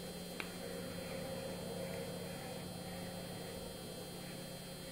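A steady low electrical hum with a faint hiss, and a single small click about half a second in.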